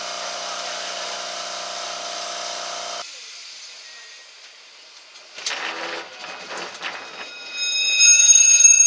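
On board a Blackpool Balloon double-deck tram: steady running noise with a motor hum, then after a cut a few rattles and knocks. About eight seconds in, a loud, sustained high-pitched squeal of steel wheels on the rails begins, typical of the tram rounding a curve.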